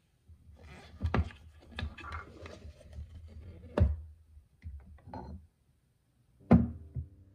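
Wooden staking-set case being opened by hand: the latch and wooden cover knock and clunk against the box several times, with handling noise and a few small clicks between. The loudest knock comes near the end, as background music comes in.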